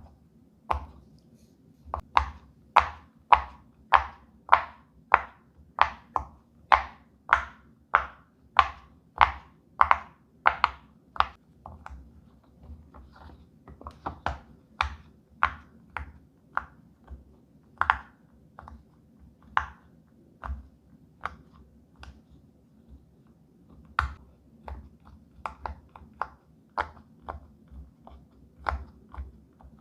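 Silicone pop-it fidget toy bubbles being pressed one after another, each giving a short sharp pop. For the first ten seconds or so the pops come evenly, about two a second and at their loudest; after that they are softer and more irregular.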